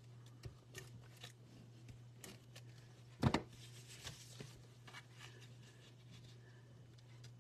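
Paper and cardstock being handled on a desktop: light rustles and taps, with one sharper knock a little over three seconds in, over a steady low hum.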